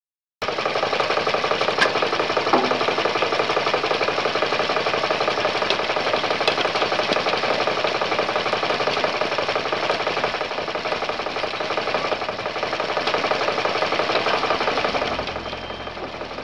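Soil-screening machinery running with a dense, fast mechanical rattle, starting abruptly just under half a second in and easing slightly near the end: the homemade trommel and shaker table at work, with a mini digger operating close by.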